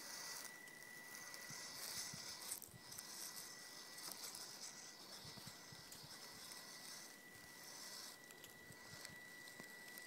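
Faint whine and hiss of a small RC rock crawler's electric motor and geared drivetrain, a steady thin tone with hiss that comes and goes in short throttle bursts as it climbs over a stump and rocks. Light crackles of tyres on dry leaves run under it.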